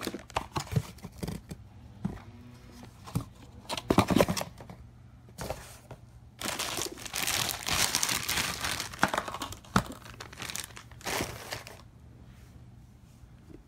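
Clear plastic packaging bag crinkling and rustling as a handheld air blower is unwrapped, with scattered short handling knocks. A long run of dense rustling in the middle, then it dies down near the end.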